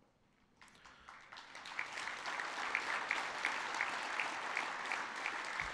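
Audience applauding: near silence at first, then clapping starts about half a second in, swells over the next second and goes on steadily.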